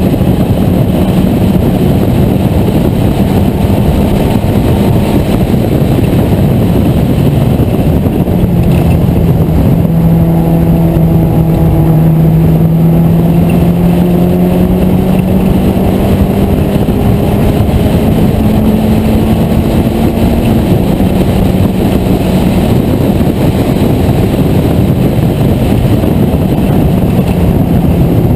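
Vintage British race car's engine under hard acceleration, recorded onboard in the open cockpit with dense noise under the engine note. Its pitch climbs slowly through a long pull on a straight and steps down once at a gear change about twenty seconds in.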